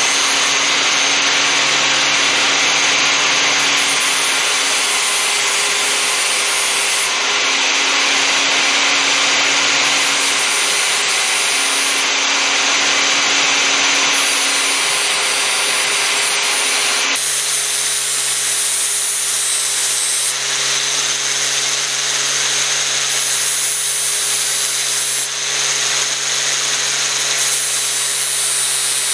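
Angle grinder with a flap disc, clamped in a vise, running steadily while a steel punch is ground against it to shape its sides. The grinding hiss eases and the motor tone shifts about two-thirds of the way through.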